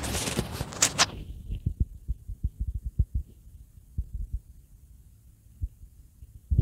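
Countdown-timer sound effect: short, dull, low thumps repeating several times a second, thinning out toward the end. A brighter burst of sound fills the first second, and a sharp loud hit comes right at the end.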